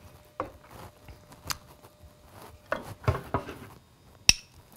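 Spoons scraping and knocking against a pot and a small bowl while rice pudding is dished up, a few soft knocks, then one sharp ringing clink of a metal spoon on the bowl near the end.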